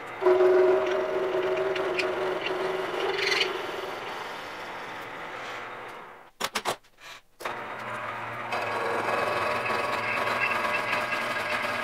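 Bridgeport milling machine running, with a homemade fly cutter cutting an O-ring groove around a shift-rod bore in a Land Rover Series III gearbox housing. Near the start, aerosol lubricant is sprayed onto the cut. The sound cuts out briefly a little past halfway, then the steady machining resumes.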